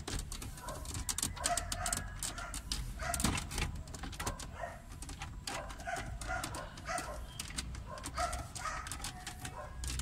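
Plastic center dashboard panel of a Mitsubishi Lancer being handled and worked into place: a rapid run of sharp plastic clicks and knocks. Short animal calls, most likely a dog whimpering, sound throughout in the background.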